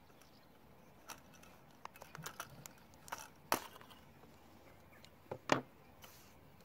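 Faint, scattered clicks and taps of hand crafting: scissors snipping off the end of a wire and being put down, and the paper-wrapped wire frame shifted on paper, with two sharper knocks about three and a half and five and a half seconds in.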